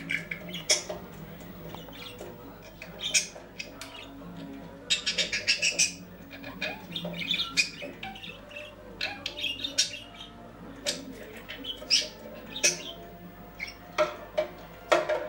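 Budgerigar chirping and chattering in short, sharp calls, with a quick run of them about five seconds in.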